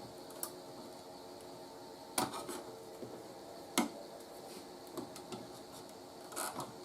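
Scattered small clicks and knocks of tools and parts being handled on a workbench, about five in all with a short cluster near the end, over a faint steady hum.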